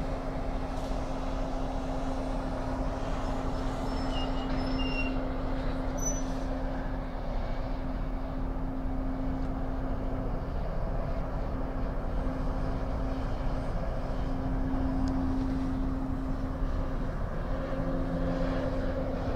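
Freightliner Coronado tri-drive semi's 600 hp diesel engine running at a steady pitch while it pulls a string of train cars.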